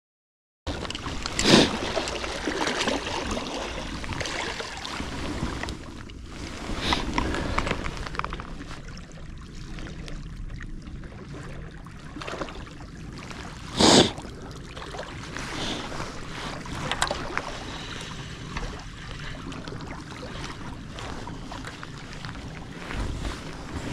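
Seaside wind rumbling on the microphone with the sea washing against the shore, broken by two short loud bursts, about a second and a half in and near fourteen seconds.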